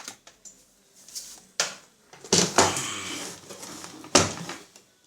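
Handling noises: a few sharp knocks and a clattering stretch in the middle as hard objects are moved or set down.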